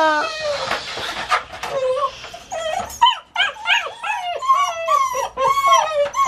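Doberman pinscher puppies whining and crying in their wire crate, protesting being shut in for the night. A long falling whine ends the first moment, then comes a quick run of short rising-and-falling whimpers, several a second.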